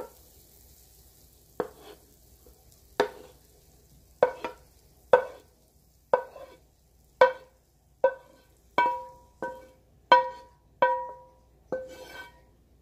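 Wooden spoon knocking against a metal frying pan while cooked ground turkey is scraped out of it: about fourteen sharp knocks, each with a brief ringing tone, coming closer together after the first few seconds.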